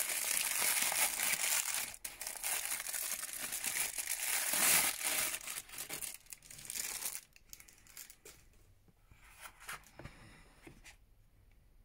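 Thin plastic wrapping crinkling and rustling as it is handled and pulled out of the eyepiece box. The crinkling dies down after about seven seconds to a few scattered soft handling noises.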